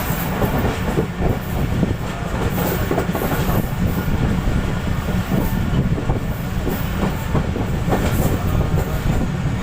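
Passenger train coaches rolling past at slow speed: a steady rumble with wheels clattering over the track.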